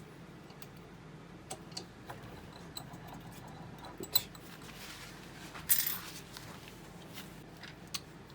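Light metallic clicks and clinks of small metal parts and tools being handled, with a sharper click about four seconds in and a louder, brief rattle just before six seconds.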